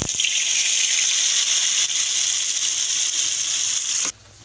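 Blended wet spice paste poured into hot oil in a wok, sizzling loudly with a steady hiss that cuts off suddenly near the end.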